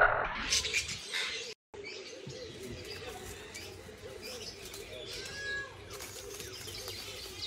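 A budgerigar chirping and fluttering its wings as it takes off, cut off abruptly about a second and a half in. Then birds calling: a low, wavering call repeating over and over, with a short high call about halfway through.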